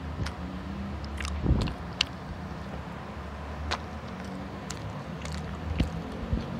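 Close-up chewing and biting into a burger, with scattered wet mouth clicks and lip smacks. A low steady hum runs underneath.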